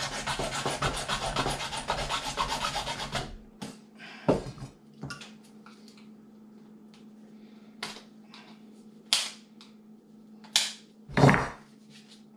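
Hacksaw sawing in quick strokes into the plastic cap of an aerosol can for about three seconds. Then scattered clicks and knocks as the cap is worked by hand, with the loudest knock about eleven seconds in.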